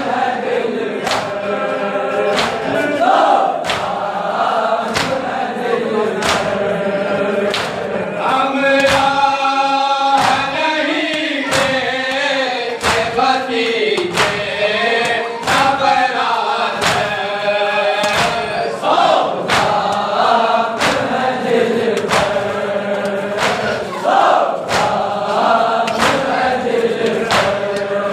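Group of men chanting a noha, a Shia lament, in unison, kept in time by the steady slap of hands striking chests (matam) about once a second.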